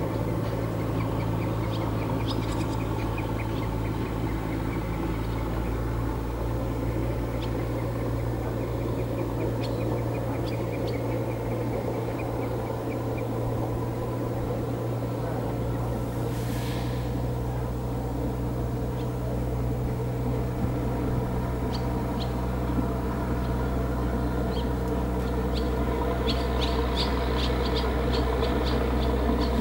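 A steady, low engine drone that holds one pitch throughout, with small birds chirping now and then.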